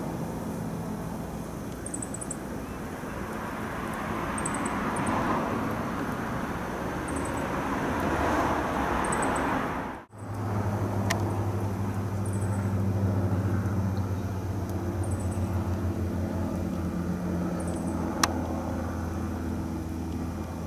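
A helicopter flying overhead, a steady rushing noise that swells, cut off abruptly about halfway through. It gives way to a high-wing twin-turboprop airliner passing overhead, whose propellers make a steady low drone. A single sharp click comes near the end.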